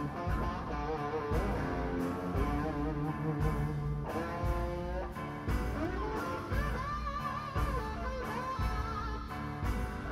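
Electric guitar played through an amplifier: lead lines with bent notes and vibrato over a regular low pulse. The guitar is being tried out to judge its setup and tone settings.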